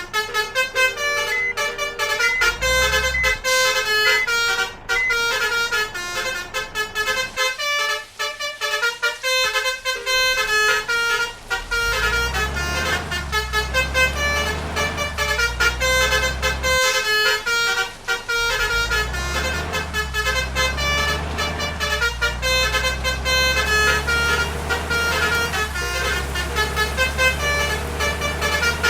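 Multi-tone 'telolet' bus horns (basuri horns) playing quick melodic tunes, the notes changing several times a second. A low steady vehicle rumble runs underneath from about twelve seconds in.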